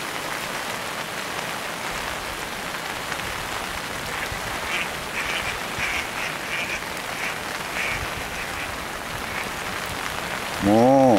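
Steady rain falling on a pond, with a run of short duck calls from about four to nine seconds in as the ducks flush off the bank and fly. Just before the end a person's voice sounds briefly, louder than anything else.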